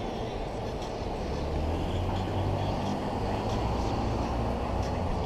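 Street traffic: cars driving through an intersection, a steady low engine and road rumble that swells a little as a car passes close by.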